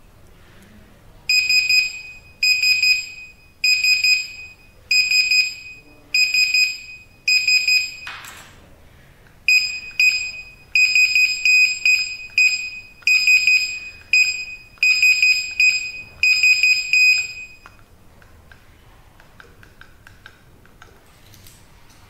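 Access-control keypad's built-in buzzer beeping repeatedly with a high, buzzy tone: six beeps about a second apart, then after a short pause a faster run of beeps. These are the error beeps of invalid cards or wrong PINs being entered, as the unit is driven toward its 10-attempt lockout.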